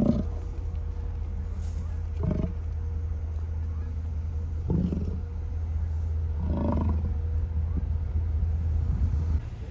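American bison grunting: four short, low calls about two seconds apart, over a steady low hum that cuts off shortly before the end.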